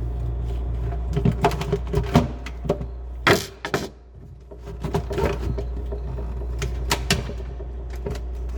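A steady low hum with many scattered sharp clicks and knocks, as of parts being handled. One loud knock comes a little over three seconds in, and the hum dips for about a second after it.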